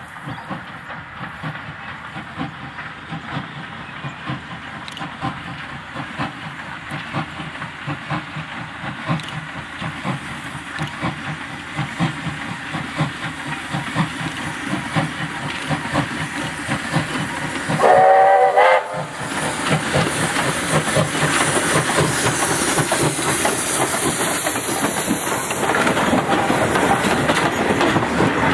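Victorian Railways D3-class steam locomotive working a passenger train, its exhaust beating in a steady rhythm that grows louder as it approaches. About two-thirds of the way in it gives one whistle blast of about a second. It then passes close with a hiss of steam, followed by the carriages rolling by.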